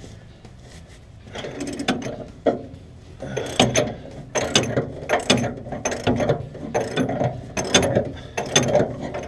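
Hand socket ratchet worked back and forth in quick repeated strokes, its pawl clicking on each return, as it unscrews a suspension nut on a 1968 Plymouth Valiant. The strokes start about a second in and keep a steady pace.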